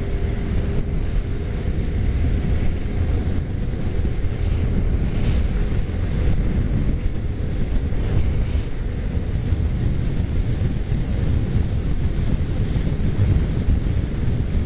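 Steady low wind rush on the microphone of a Suzuki motorcycle riding at freeway speed, with the bike's engine and road noise mixed in.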